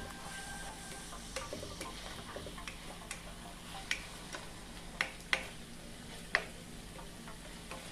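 Saltfish and seasonings frying gently in oil in a pan while a silicone spatula stirs them, scraping and knocking against the pan in several sharp, irregular taps over a faint sizzle.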